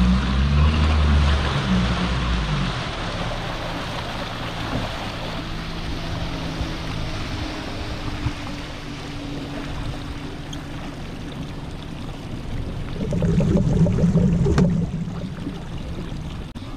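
Steady rushing of wind and water around a small boat, heavy and rumbling at the start, with a louder stretch of rumbling and rustling near the end.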